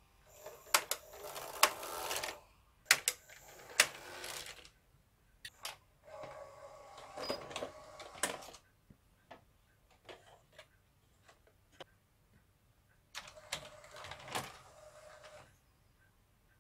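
Hitachi VT-S1000 S-VHS VCR ejecting a cassette: its loading mechanism runs in three spells of motor whirring and rapid mechanical clicks as the tape is unthreaded and the motorized front drawer slides out, then later runs again as the drawer closes.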